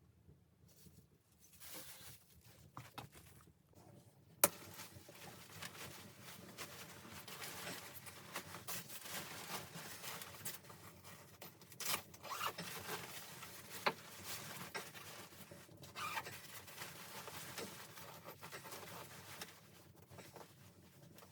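Rustling and rubbing handling noises with a few sharp clicks or knocks, the loudest about four and a half seconds in.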